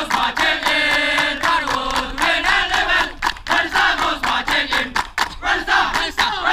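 A crowd of men chanting together in unison while clapping their hands.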